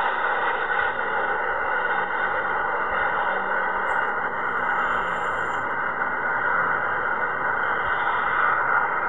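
Steady jet noise from an Airbus A340's four turbofan engines as the airliner climbs out after takeoff.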